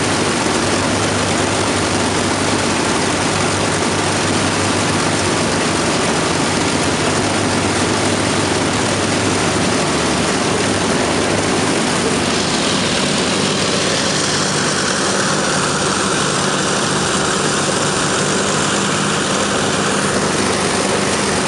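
Avro Lancaster bomber's four Merlin V12 piston engines running together on a ground run, a loud, steady sound of the engines and propellers.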